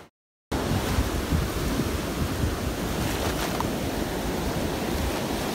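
Ocean surf breaking and washing up a sandy beach, with wind rumbling on the microphone; it starts suddenly after half a second of silence and then runs steadily.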